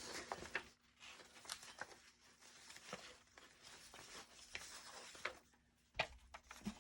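Paper sheets and scraps rustling and shuffling as they are handled and sorted by hand, with scattered small taps and clicks.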